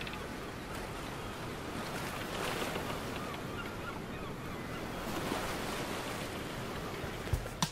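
Ocean surf washing in a steady hiss, swelling about two and a half seconds in and again around five seconds, with a low thump right at the end.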